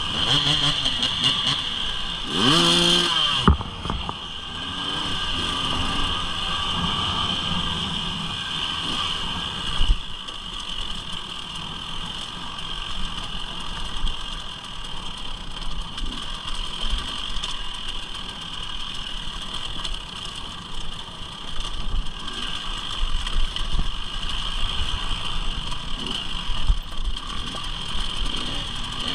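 Motorcycle engine running, with a quick rev rising in pitch about two to three seconds in, then a steady drone.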